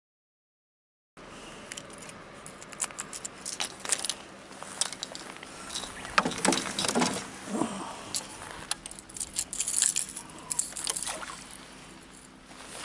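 Clicks, knocks and rattles of fishing tackle and rods being handled aboard a small rental bass boat, starting about a second in, with the loudest knocks around the middle.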